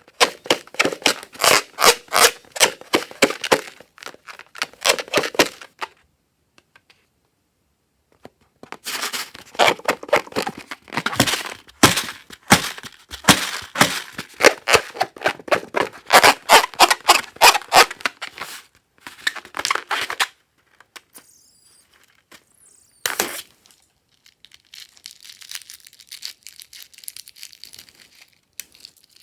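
Slime being squished and worked by hand, giving a rapid, sticky crackling of many small clicks in two long runs with a short pause between them. Later comes a single sharp snap, then a fainter rustle.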